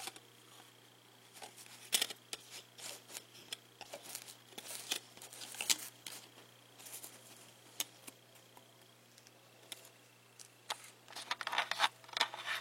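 Small snips, clicks and crinkles of foam adhesive pads being cut, peeled from their backing and pressed onto an SD card adapter, in scattered bursts that grow busier near the end.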